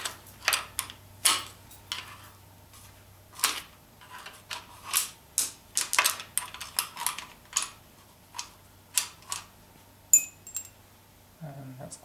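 A screwdriver and loose bolts clicking and scraping against the metal of a BMW N54 engine's crankcase as the bolts are flicked out: a run of irregular, sharp metallic clicks, several a second at times. About ten seconds in, one sharper clink rings briefly.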